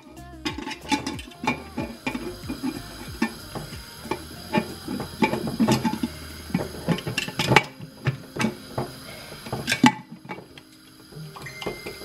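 Stainless steel pressure cooker being handled, its lid fitted and closed: an irregular run of metal clicks, knocks and light clatter, quieter for a moment near the end.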